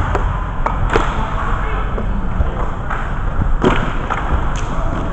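Inline hockey rink din: a steady low rumble with scattered sharp knocks and clacks of hockey sticks and gear, about six in all, the loudest about three and a half seconds in.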